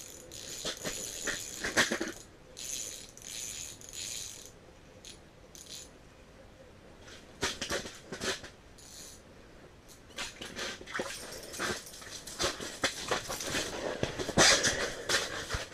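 Close handling noises: clothing rustling and a fishing rod and reel being handled over the ice hole, in irregular short rustles and clicks that grow busier and louder near the end.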